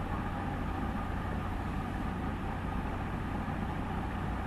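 Steady background noise, an even hiss with a low electrical hum underneath, unchanging throughout, with no distinct events.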